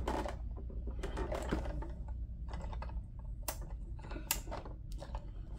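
Light clicks and taps of a plastic O-gauge model boxcar being handled and turned over, its body and wheel trucks knocking against the hands and packaging, with two sharper clicks about three and a half and four and a quarter seconds in.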